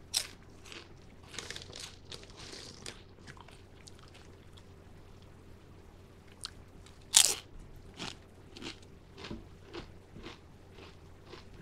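A person biting into and chewing wavy potato chips close to a microphone: a sharp crunch of the first bite, a run of smaller crunches as it is chewed, then a second loud bite about seven seconds in, followed by more chewing.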